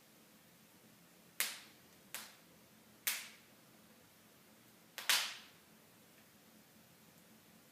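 Wood fire in a fireplace popping: five sharp cracks a second or so apart, the last two close together, over a faint steady hiss.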